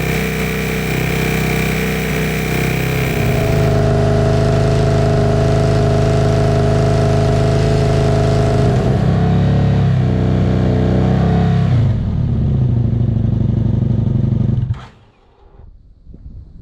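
Husqvarna Nuda 900's parallel-twin engine running through a Remus aftermarket exhaust, held at steady revs that change in a few steps. It stops abruptly near the end, leaving faint wind noise.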